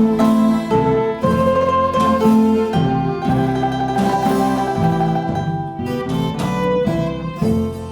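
A music school ensemble playing an instrumental piece on plucked and bowed string instruments, a melody of changing notes over a steady accompaniment.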